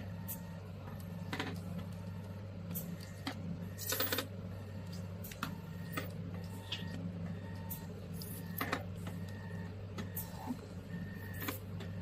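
Vacuum roller handpiece of a body-contouring machine running against skin: a steady low hum with a drone that pulses on and off, and irregular sharp clicks about once a second, the loudest a cluster about four seconds in.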